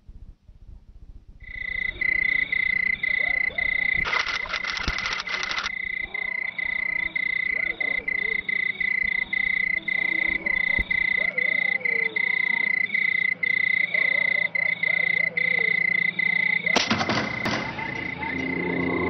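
A steady, high-pitched night-time animal trill, broken by brief gaps about twice a second, starting about a second and a half in. Two short bursts of noise come through it, one about four seconds in and one near the end.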